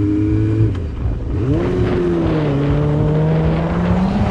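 Sport bike's engine running at road speed. Its pitch drops sharply about a second and a half in, then holds and climbs slowly toward the end.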